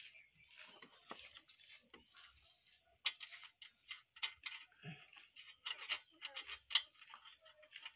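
Faint scattered clicks, taps and rustles of a hand working a replacement oxygen sensor's wiring and plastic connector into place in a car's engine bay, with sharper clicks about three seconds in and again near seven seconds.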